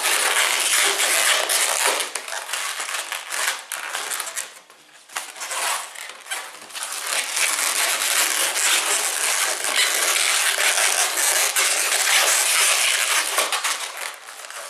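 Inflated latex modelling balloons rubbing and scraping against each other as they are twisted and fastened together, a dense crackly noise with a short lull about four and a half seconds in.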